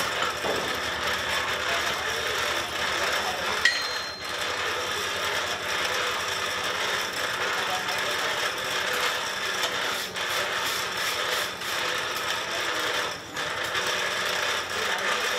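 Blacksmith's coal forge with its air blast running and the fire burning hard: a steady rushing noise with a faint motor hum. About three and a half seconds in, a single sharp metallic clink with a short ring, as tongs strike iron.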